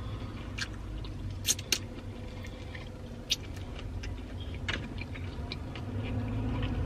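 Chewing a mouthful of crispy fried chicken wing, with a few sharp clicks, over a low steady rumble.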